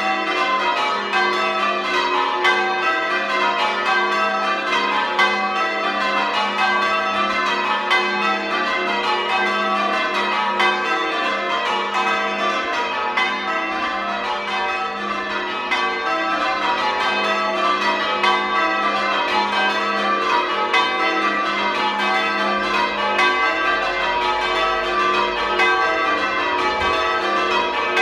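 Church bells being rung in continuous rows, each row struck one bell after another from the highest down to the lowest, in the manner of English change ringing.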